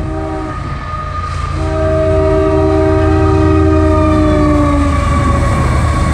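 CSX freight train's diesel locomotives sounding a multi-note horn as they pass close by, a short blast and then a long one whose pitch drops as the lead unit goes past. The engines' low rumble underneath grows louder as the train nears.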